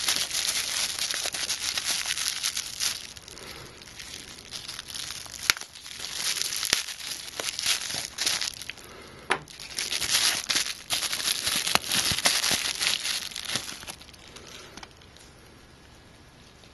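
Pink anti-static bubble bag crinkling and crackling as it is handled and opened, in three spells with a few sharp clicks, dying away near the end.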